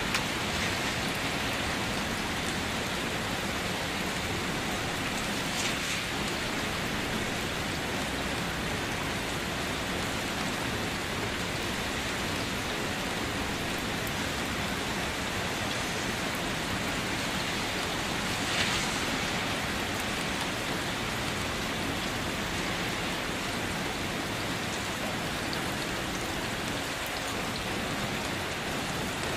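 Steady rain falling, an even hiss of many drops, briefly a little louder twice, about six and nineteen seconds in.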